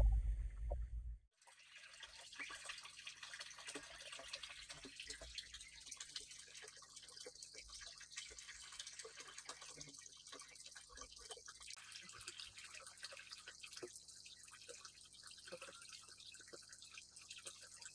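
Water dripping irregularly into a garden pond, many small drips over a faint steady hiss. A low rumble runs at the start and cuts off abruptly about a second in.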